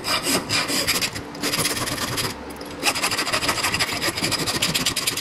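Round file rasping back and forth inside a short slice of 1-inch metal pipe held in a vise, deburring the inner edge left rough by a cutting wheel. Rapid filing strokes, with a short break about halfway through.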